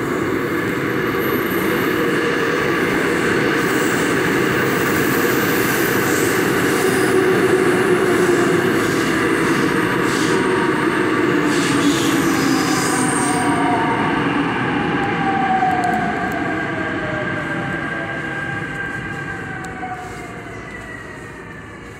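Seoul Subway Line 5 train entering an underground station: a loud running rumble of wheels on rail, with whining tones that fall in pitch as the train brakes. From about 16 s in, the sound fades steadily as the train slows toward a stop.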